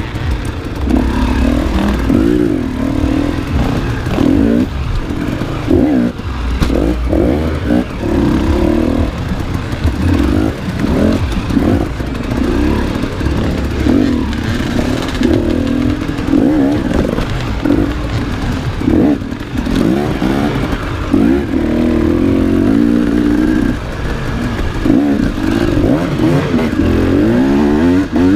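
Enduro motorcycle engine working hard off-road, revving up and falling back every second or two with the throttle and gear changes.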